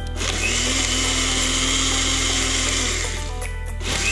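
Background music over a 300-watt Maimeite 3-in-1 countertop blender running, blending Oreo cookies with milk into a shake; the sound drops out briefly about three seconds in.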